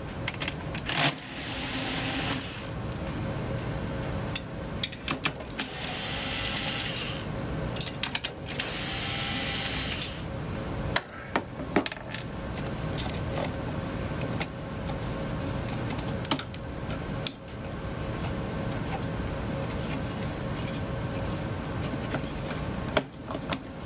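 Electric screwdriver running in three short bursts as screws are backed out of an oscilloscope's metal chassis, with clicks and clatter of the screws and parts being handled between bursts.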